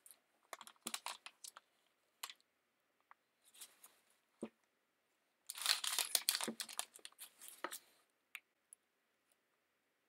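Scattered clicks, knocks and paper rustling as a Bafang BBS02 mid-drive motor is handled, lifted and turned over on a paper-covered table. The busiest, loudest stretch of clatter comes about halfway through.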